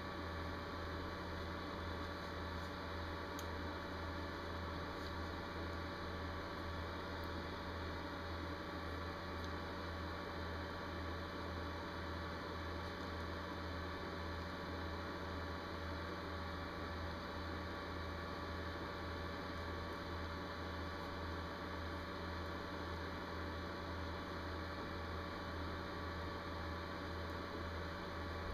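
Steady low electrical hum under a constant hiss, with a few faint ticks.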